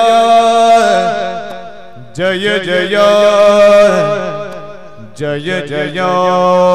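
Devotional singing for a Yakshagana performance: a voice intoning a hymn to the goddess in three long, drawn-out phrases, each held and slowly fading, over a steady drone.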